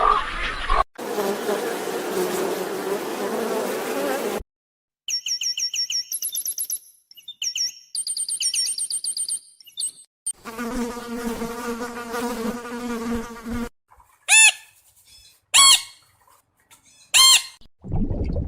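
A series of separate animal recordings joined with hard cuts. First comes insect buzzing, then a run of high, quick bird chirps, then a steady insect buzz. Near the end there are three loud, short calls, each rising and then falling in pitch.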